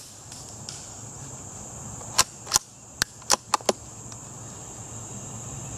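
Suppressed Savage Mark II .22 rifle firing an Aguila Super Colibri 20-grain round, so quiet that the shot is only a few sharp clicks, with the bullet hitting a tree. A quick run of small clicks follows about a second later.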